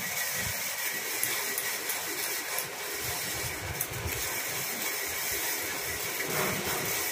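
Steady background hiss.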